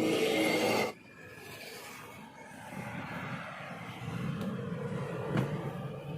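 Motor vehicle engine running: a loud, rising engine sound that cuts off abruptly about a second in, followed by a quieter steady engine hum with a sharp click near the end.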